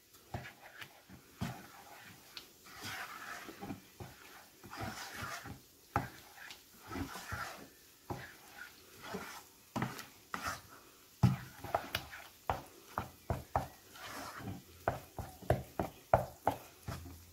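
Wooden spoon stirring a thick mix of boiled lentils and fine bulgur in a saucepan: wet scraping and squelching with repeated knocks of the spoon against the pan. The knocks come quicker in the second half.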